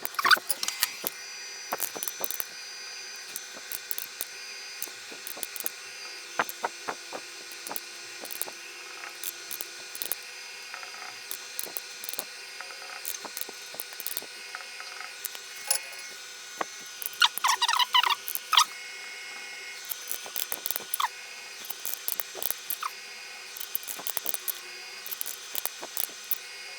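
Small, irregular clicks and taps of hand work at a desk while calculations are worked out, with a brief squeaky scratching about 17 seconds in. Under it runs a steady faint hum from the running fridges and electrics.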